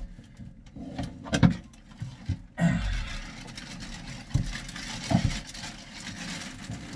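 Plastic trash bag rustling and crinkling as a bulky Lectra/San marine sanitation unit is worked into it, with several dull thumps and knocks as the unit is shifted.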